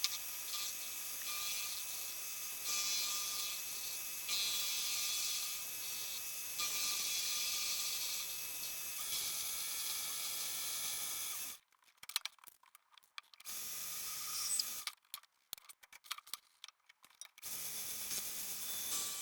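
Mini lathe running while its tool faces the end of 40 mm bar stock: a steady high hiss with a faint whine. About two-thirds through it breaks into short choppy bits and silent gaps, then the steady sound returns.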